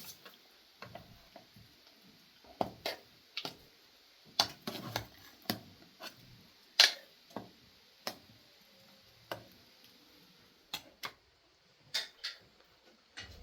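A series of irregularly spaced light clicks and knocks, the loudest about halfway through.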